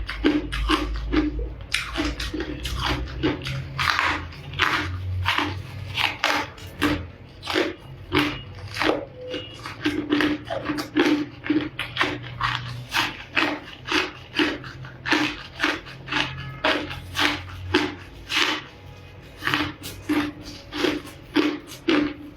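Ice being bitten and chewed, crisp crunches coming in quick succession, a few a second.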